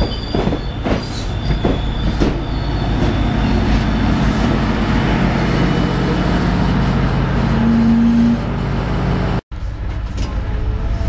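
GO Transit commuter train running on the rails, heard from inside a passenger car: a steady rumble with sharp clicks from the wheels in the first couple of seconds. A steady tone comes up in the middle and stops about eight seconds in, and the sound cuts out for an instant near the end.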